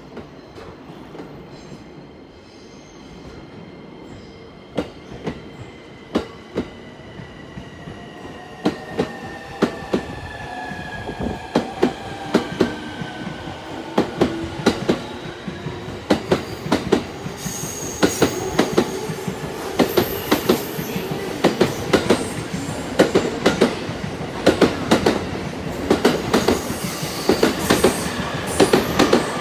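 JR East E231 series 1000 electric multiple unit pulling away from a station platform. Its traction motors and inverters whine with tones that shift in pitch as it gathers speed, while the wheels clack over rail joints, starting about five seconds in and coming faster and louder as the train accelerates.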